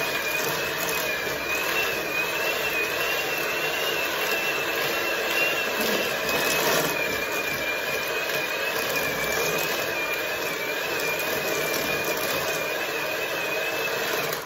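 Hand-held electric beater running steadily in a stainless steel bowl, creaming butter and sugar, with a high motor whine that wavers slightly in pitch. It cuts off at the end.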